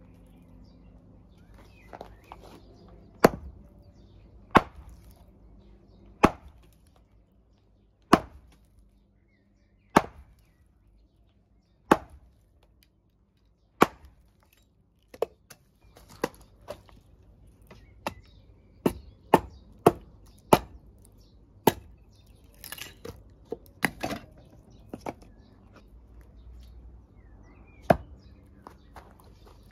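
Axe blade chopping into a short log on a wooden chopping stump: sharp single blows about every two seconds at first, then a run of quicker, lighter strikes, and one more blow near the end.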